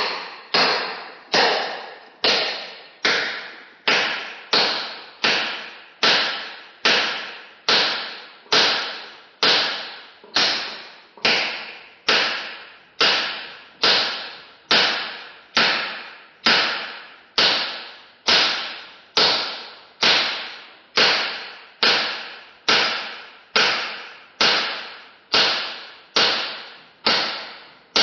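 Hammer blows struck one at a time at a steady pace, about one every 0.8 seconds, each a sharp hit with a short ringing decay.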